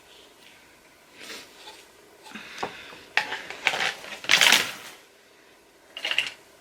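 Small plastic toy figures being handled and put down: a run of light clicks, knocks and rustles, loudest about four and a half seconds in, with one more clatter near the end.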